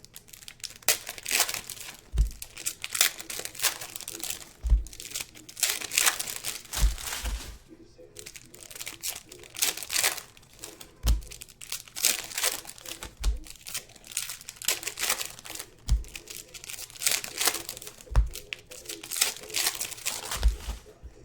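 Plastic wrapping crinkling and tearing as it is handled, in dense irregular crackles that ease off briefly about eight seconds in, with a soft low thump every couple of seconds.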